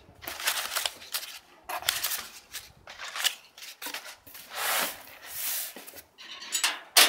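Crumpled brown paper packing crinkling and rustling in irregular bursts as it is grabbed and pulled out of a cardboard box, with a sharp crackle near the end.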